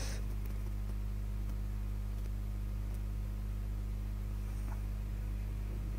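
Steady low hum with faint hiss, unchanging throughout: the background noise of the voice recording, with no other sound.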